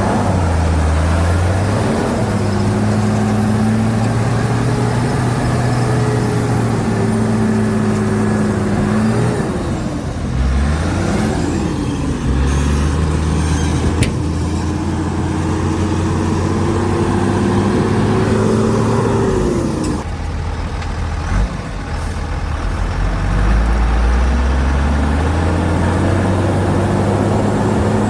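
Diesel engine of a Shantui DH17C2 bulldozer running under load, its revs dropping and climbing again several times as it works, with a sharp click about halfway through.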